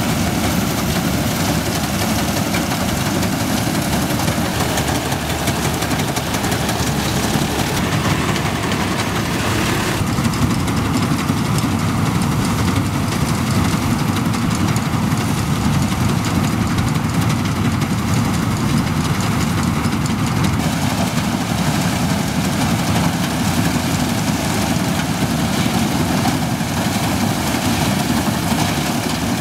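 Tractor-mounted Standard TSC-513 combine harvester at work: the tractor's diesel engine and the threshing machinery running steadily under load as it cuts and threshes the crop. The sound shifts slightly about ten and twenty seconds in.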